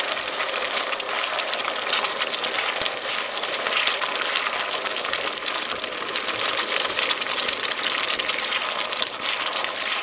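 Risotto rice and onions boiling and sizzling hard in a frying pan just after white wine was poured in: a steady, dense crackle and bubble as the wine cooks off, stirred with a wooden spatula.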